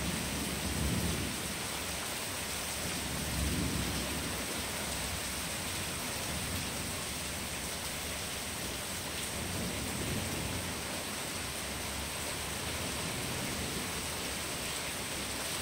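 Steady rain hissing, with several low, rolling rumbles of thunder swelling up and fading.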